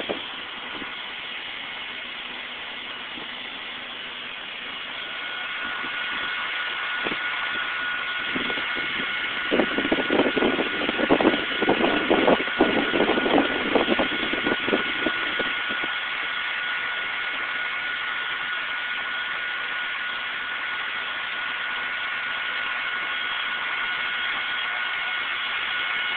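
Fire trucks idling: a steady engine drone under heavy hiss, with a steady high whine over it. From about nine seconds in, for several seconds, a stretch of irregular rumbling bursts.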